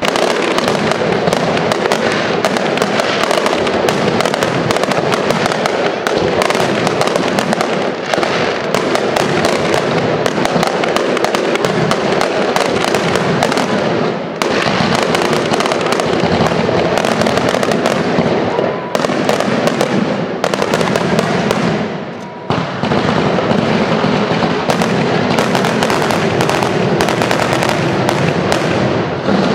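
A long, loud barrage of firecrackers going off in dense, rapid crackling with hardly a gap, broken by a few brief lulls.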